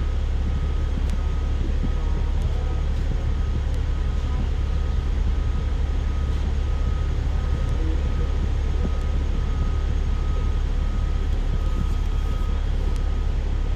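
Hong Kong city bus interior: steady engine and road rumble while the bus is under way, with a faint high tone pulsing steadily.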